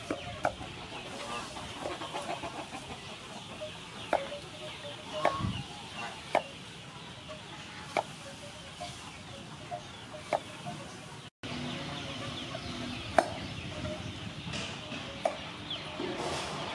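Cleaver chopping peeled green papaya on a thick wooden chopping block: single sharp knocks a second or two apart. Chickens cluck in the background.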